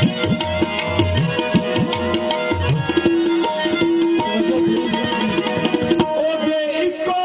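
Tabla played in a fast, dense run of sharp strokes, the deep bayan notes bending in pitch during the first few seconds, over steady held notes from an accompanying melody instrument.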